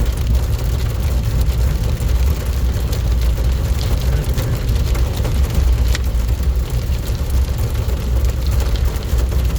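Heavy rain falling steadily, under a strong low rumble, with a few sharp ticks.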